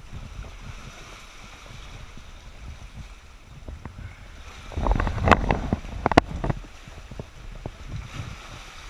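Shallow sea surge churning over rock, heard with the camera in the water: a steady low rumble. About five seconds in there is a louder burst of rushing water with a few sharp clicks and knocks.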